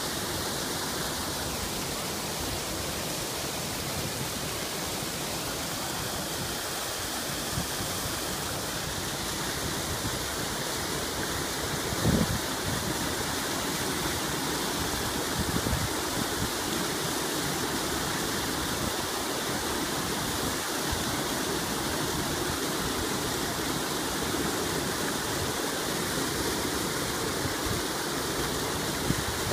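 Steady rushing of fast-flowing river water around concrete stepping stones, with a short thump about twelve seconds in.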